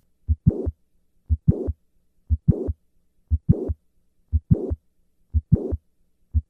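Heart sounds of mitral valve prolapse with the patient standing, about one beat a second: each beat has the first heart sound, a mid-systolic click, then a late systolic murmur running up to the second heart sound. Standing brings the click and murmur earlier in systole than squatting does.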